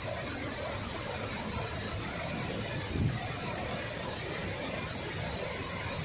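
Steady rushing noise of a large waterfall in flood pouring over a wide rock ledge, with a brief low thump about halfway through.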